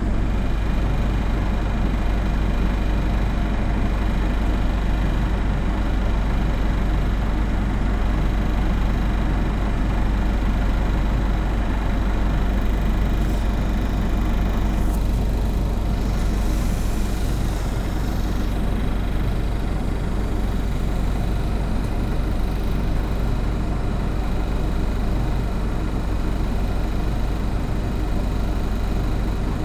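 Autosan Sancity M09LE city bus's diesel engine running steadily, heard from inside the passenger cabin as a constant low hum with road and body noise.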